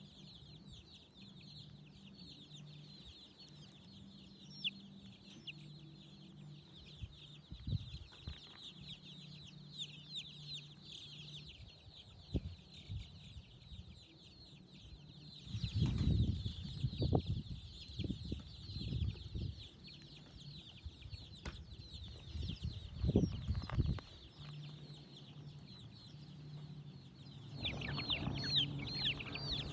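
Many chicks cheeping nonstop in quick, high-pitched peeps over a low steady hum. There are several louder low rumbles partway through and near the end.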